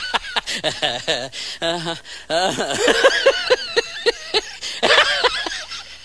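A person laughing, with a run of quick ha-ha pulses about five a second in the middle, among other non-word voice sounds.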